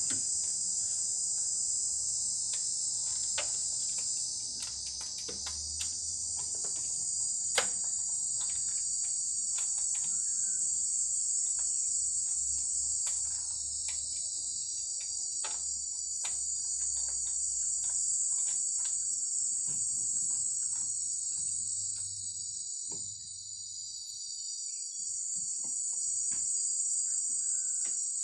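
Steady high-pitched chorus of insects, with scattered light clicks and knocks from hands working in the engine bay; one sharper knock about seven and a half seconds in.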